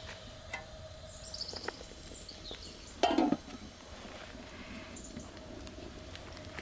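Outdoor ambience with a few short high bird chirps, and one brief loud knock about three seconds in.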